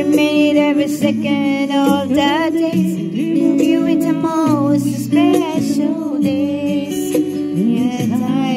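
Music: a singing voice holding long wavering notes over steady accompaniment chords, with no clear words.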